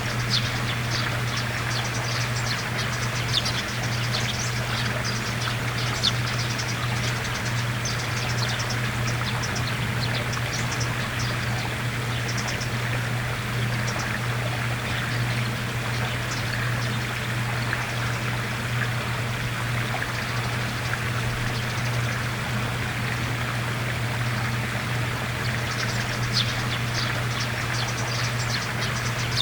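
Eurasian tree sparrows chirping in short, high notes, thickest in the first few seconds and again near the end. A steady rushing noise like running water and a constant low hum lie under the calls.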